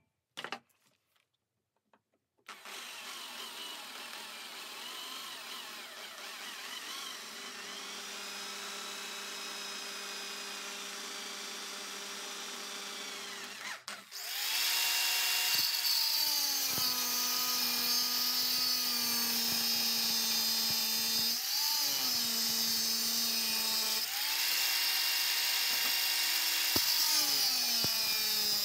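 Hand-held electric drill running steadily as it bores holes through 10 mm aluminium plate, starting a couple of seconds in. About halfway it gives way to a louder, hissier angle grinder grinding the aluminium, its motor speed sagging and recovering a few times under load.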